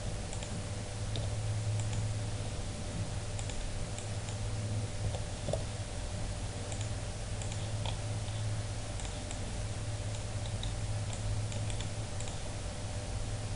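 Scattered soft clicks of computer keys being typed and a mouse being clicked, over a steady low hum.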